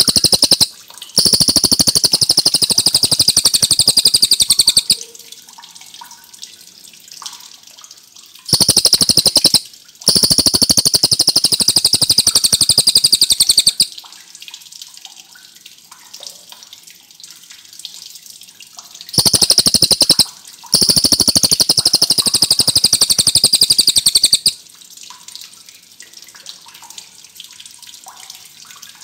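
Cililin bird singing in three loud bouts. Each bout is a brief high phrase, a short break, then a long, very rapid, high-pitched trill of three to four seconds. A faint steady rushing like running water fills the gaps between bouts.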